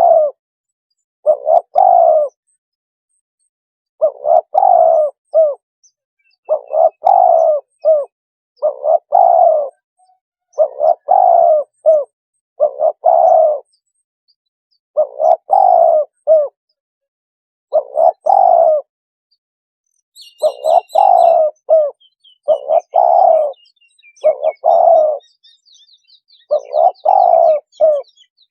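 Spotted dove cooing: a multi-note coo phrase repeated about every two seconds, the lure call used to draw spotted doves in. Small birds chirp faintly in the background from about twenty seconds in.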